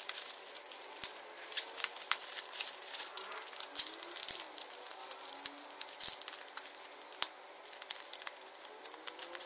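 Plastic courier mailer and bubble wrap crinkling and rustling as they are handled and cut open with scissors, a scattered run of small crackles and snips.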